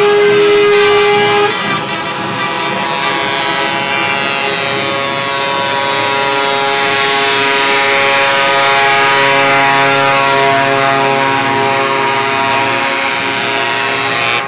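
Truck air horns sounding in long, held multi-tone blasts, one strong note cutting off about a second and a half in while other horns keep sounding over one another as the trucks pass; diesel truck engines running underneath.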